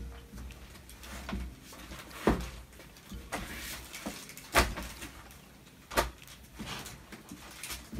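Handling noise as sketchbooks and other items are moved about and set down: soft rustles with three sharp knocks, about two, four and a half, and six seconds in.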